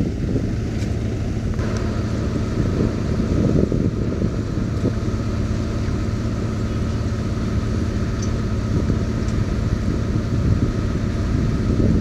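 Heavy sheet-pile driving machinery running steadily: a continuous low mechanical hum with a faint high whine over it.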